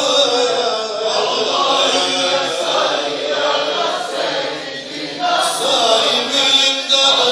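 A large group chanting together in unison, a steady massed chant with a slight dip in loudness about five seconds in before it picks up again.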